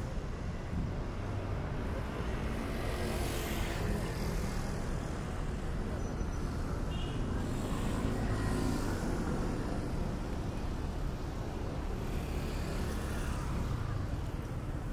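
Road traffic: a steady low rumble, with vehicles passing by three times, a few seconds apart.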